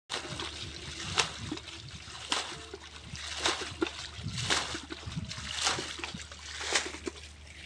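Muddy water being scooped and thrown out with a container, splashing in a steady rhythm of about one splash a second.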